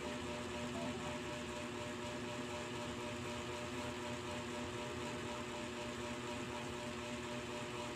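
A steady machine hum with a constant hiss, unchanging throughout, like a small motor or fan running.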